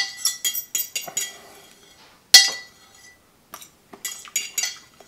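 Metal fork clinking and scraping against a bowl while picking up the last noodles. There are several quick clicks, and the loudest strike comes about two and a half seconds in, with a short ring.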